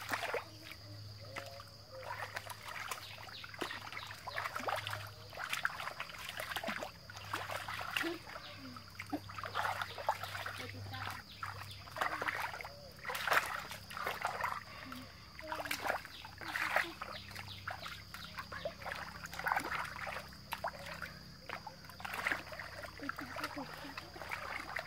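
Hands and feet sloshing and splashing in shallow muddy water, in irregular bursts every second or so, over a steady high-pitched hum.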